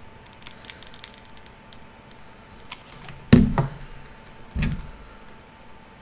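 Small taps and handling noises on a wooden tabletop as hands handle the paper-craft pieces and tools, with two sharper knocks about three and four and a half seconds in.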